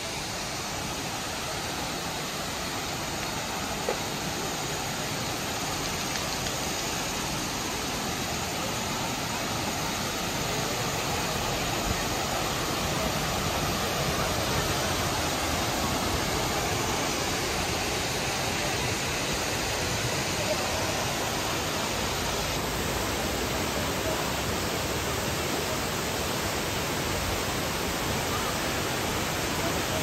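Steady rush of the Lata Iskandar waterfall's falling water, growing a little louder about ten seconds in.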